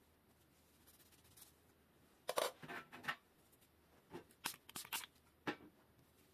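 Short scraping and rustling handling noises of a bicycle disc brake pad being rubbed in a cloth. They come in two quick groups of strokes, the first about two seconds in and the second a couple of seconds later.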